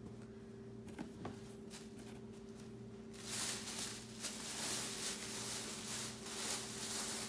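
Rustling of clothes being handled, quiet at first with a couple of soft clicks about a second in, then louder and uneven from about three seconds in as the next garment is reached for and pulled out. A faint steady hum lies underneath.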